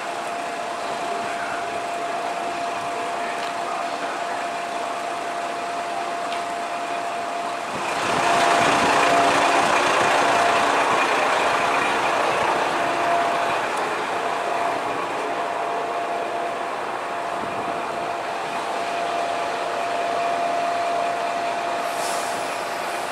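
Hitachinaka Seaside Railway single-car diesel railcar idling at a station platform: a steady engine hum with a constant whine running under it. About eight seconds in, a louder rushing noise swells and fades over several seconds, and a brief high hiss comes near the end.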